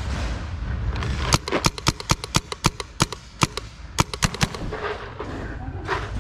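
Paintball markers firing: a rapid, uneven string of about fifteen sharp shots over some three seconds, starting about a second in.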